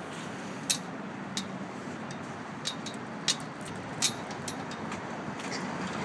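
Scattered sharp metallic clicks and rattles from a chain-link fence gate being handled, over a steady background hum. The clicks bunch up about halfway through.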